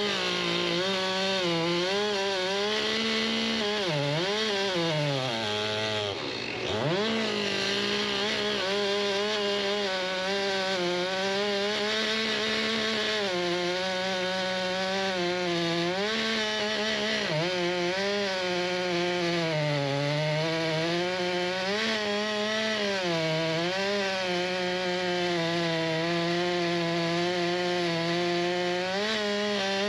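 Two-stroke chainsaw running hard while cutting into maple, its pitch sagging under load several times; about six seconds in it drops off briefly to a low idle and then revs back up.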